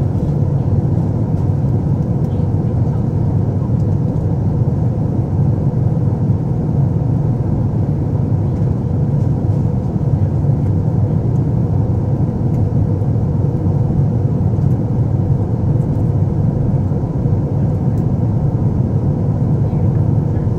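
Steady cabin noise inside an Airbus A350-900 in flight: a low, unchanging rumble of airflow and the Rolls-Royce Trent XWB engines, with a faint steady hum.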